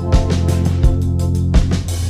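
Music track with a steady drum beat: a heavy kick drum about every 0.7 s under held chords.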